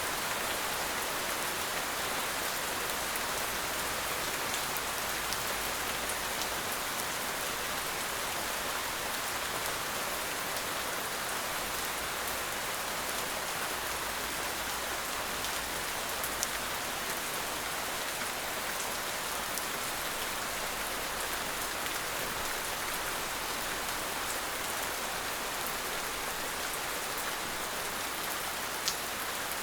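Heavy rain falling steadily in a forest, a dense even hiss of rain with scattered drips and a few louder single drops.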